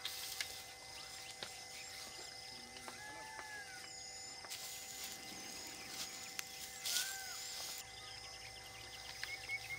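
Outdoor rural ambience: birds calling with repeated short high chirps and two arching whistled calls, over a steady drone.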